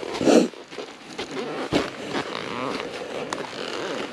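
Dirt bike engine running on a slick track, its pitch rising and falling with the throttle, with a loud rough burst just after the start and a sharp knock a little under two seconds in.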